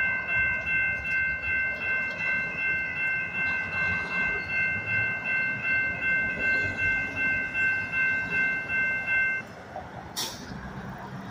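Railroad grade-crossing warning bells ringing rapidly, about two and a half strokes a second, as the crossing gates lower, warning that a train is approaching. They cut off suddenly about nine seconds in, once the gates are down, and a brief sharp noise follows about a second later.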